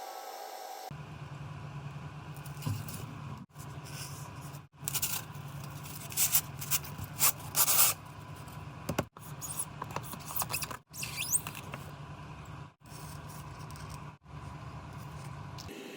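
Scraping and cutting sounds of a tool working on styrofoam, loudest in a run of scratchy strokes about five to eight seconds in, heard over a steady low hum and broken by several abrupt cuts.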